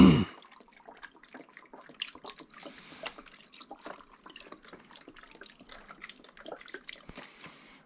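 Beef broth pouring steadily from a carton into a slow cooker crock of cut potatoes and carrots, trickling and splashing over the vegetables.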